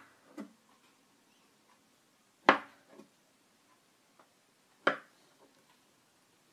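Large kitchen knife chopping a strip of rolled mantı dough into squares, the blade knocking on the tabletop: two sharp knocks about two and a half seconds apart, with fainter taps between.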